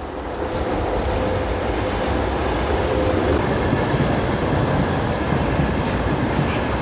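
Train passing at the crossing: a steady noise of wheels on rails that swells in the first second, with a faint steady whine fading out about three seconds in.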